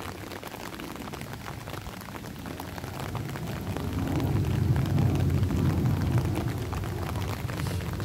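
Rain falling on an open umbrella, a steady patter of fine drop ticks. From about three seconds in a low rumble swells up, then eases off toward the end.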